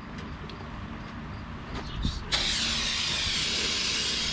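An aerosol can of brake cleaner spraying in one steady hiss that starts suddenly a little over halfway in.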